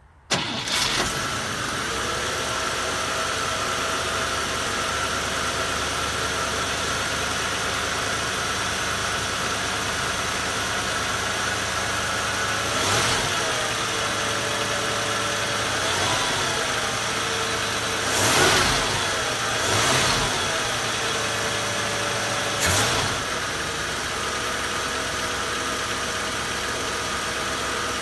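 A 1962 Cadillac's 390 V8 starting from cold. It catches almost at once and settles into a steady idle. In the second half it swells briefly in speed about five times, as if the throttle is blipped, and then returns to idle.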